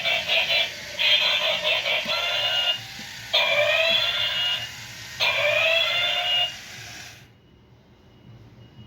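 Electronic fighting sound effects from a toy robot's small speaker: four bursts of warbling, alarm-like tones with short pitch sweeps, stopping about seven seconds in.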